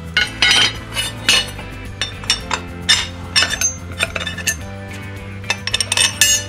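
Irregular metal clinks and taps as a steel mower blade, a long bolt and a spacer are handled and fitted together, over background music with a steady bass line.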